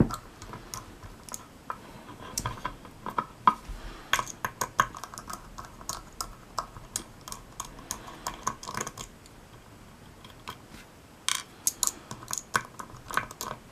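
Irregular small metal clicks and taps from handling a mortise lock cylinder and a little Phillips screwdriver bit as the cylinder's actuator is being unscrewed. A cluster of louder clicks comes near the end.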